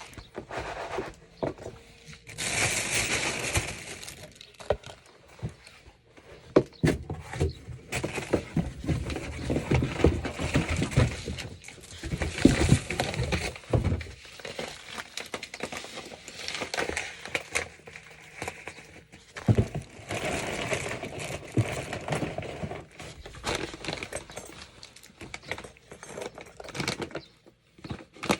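Cat litter being scooped out of a litter box: irregular bursts of scraping and rustling with many small clicks.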